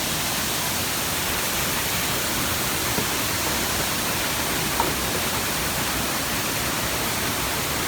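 Steady rushing noise of a tall waterfall, Mantayupan Falls (about 98 m high), heard close by.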